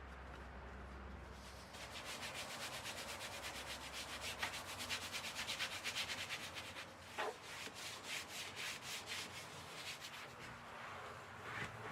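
Scrubbing: quick, rhythmic rubbing strokes on a surface, several a second, with a short falling squeak about seven seconds in.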